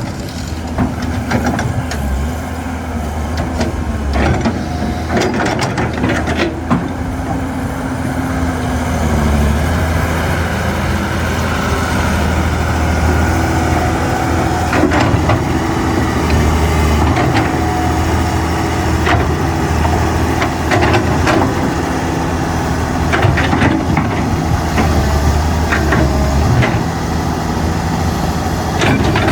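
Hydraulic excavator's diesel engine running at work, its hum swelling and easing every few seconds as the load changes, with scattered metal clanks and knocks.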